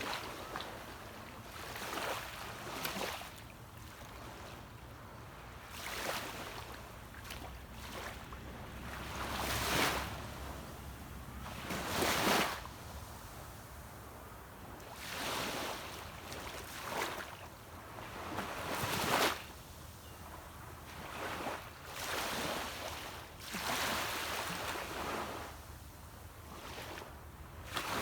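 Small sea waves breaking and washing up a beach, each rushing swell rising and falling every few seconds, over a steady low rumble.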